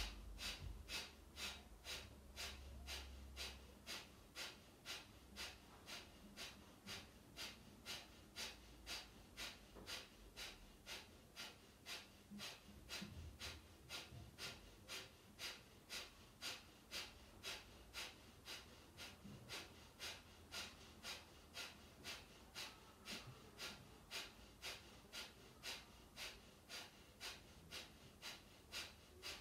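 Kapalabhati pranayama: a woman's short, forceful exhalations pumped out through the nose by sharp snaps of the belly, about two a second in a steady rhythm, with quiet passive inhalations between. The strokes are faint.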